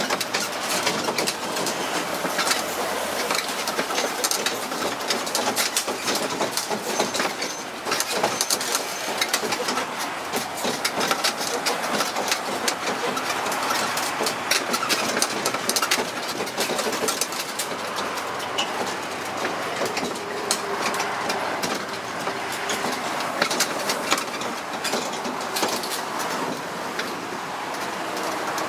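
Tourist mini train running along a street, heard from aboard: engine noise under a steady clatter and rattle of the carriages.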